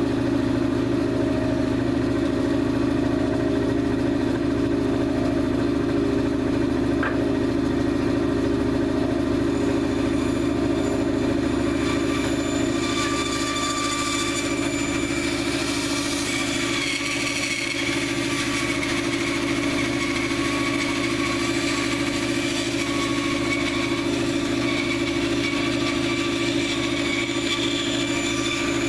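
Bandsaw running with a steady motor hum. From about twelve seconds in, the blade is cutting a small block of old, dry log wood, adding a higher hissing rasp over the hum.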